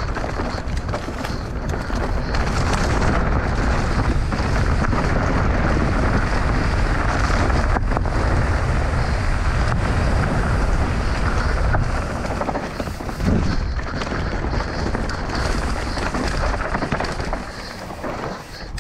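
Mountain bike descending a rocky trail at race speed: wind buffeting the camera's microphone in a heavy rumble, with the bike clattering over rocks in many quick knocks.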